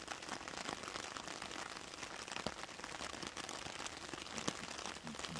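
Rain falling steadily, an even hiss dotted with the small ticks of individual drops.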